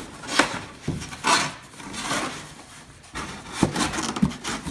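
Cardboard box flaps being pushed and folded into place by hand: cardboard scraping and rubbing, with a few sharp knocks spread through.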